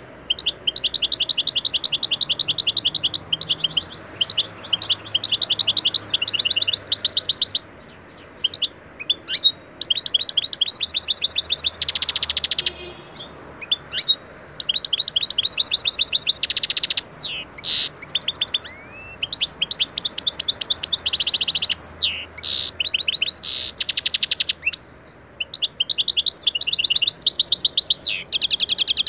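European goldfinch (saka) singing its song: long runs of fast, high repeated notes and twittering trills, broken by a few short pauses, with a harsher buzzy note about twelve seconds in.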